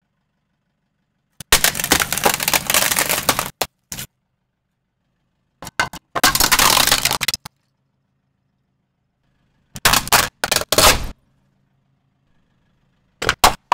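Plastic objects (an exit-sign casing, a bowl, a cord reel) cracking and crunching as a car tyre rolls over them, in three separate bursts of one to two seconds each. Another burst starts near the end.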